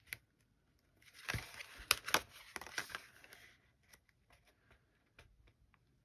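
Paper card stock being handled and shifted into place. About a second in there is a rustling scrape with a few sharp taps, then a few small ticks follow.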